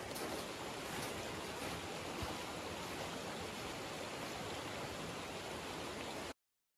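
Rushing water of a mountain meltwater stream, a steady even hiss that stops abruptly a little after six seconds in.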